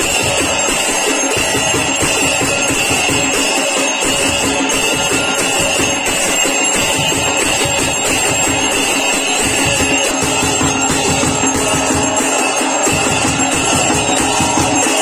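Temple aarti music: large brass hand cymbals (jhanj) clashed in a fast, steady rhythm over a continuous ringing tone.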